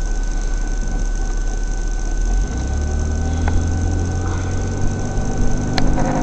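Car engine and road noise heard inside the cabin through a dashcam's microphone, with a steady high whine. About two and a half seconds in, the car pulls away from a stop and the engine note rises.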